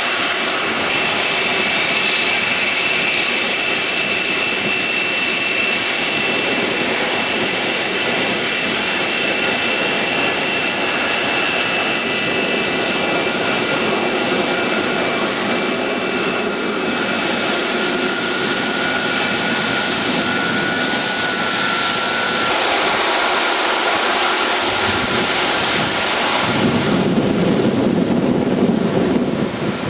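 Boeing 747-400's four Rolls-Royce RB211 turbofan engines running steadily at low power, with a high whine over the jet noise. About 25 seconds in a deeper rumble comes in.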